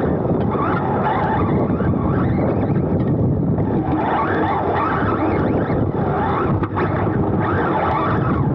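On-board sound of a Serpent SRX2 2wd electric off-road buggy racing on AstroTurf: the brushless motor and drivetrain whine rising and falling in pitch with the throttle, over a steady rush of wind and tyre noise on the camera's microphone.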